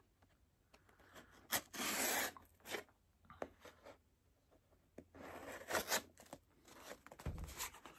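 A cardboard shipping box being cut open: a blade slitting and ripping its paper packing tape in several short tearing, scraping bursts, with handling of the box between them.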